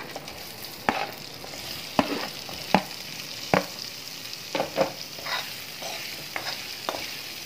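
Boiled potato pieces sizzling softly in a little hot oil and spices in a metal kadhai. A metal spoon stirs and scrapes them, clinking sharply against the pan every second or so.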